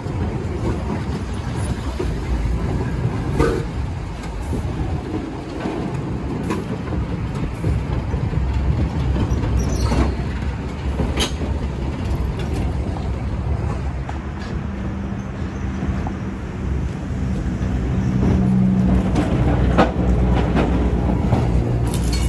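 Vintage electric tram, a Sydney P-class car, rolling slowly past close by: a steady low rumble of wheels and running gear with a few sharp clicks. A steady hum comes in about two-thirds of the way through.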